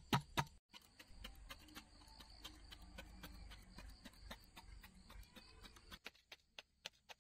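A fork pricking pieces of raw winter melon in a steel plate, its tines clicking against the metal about four times a second. The clicks are loud at first, faint through most of the middle, and clear again near the end.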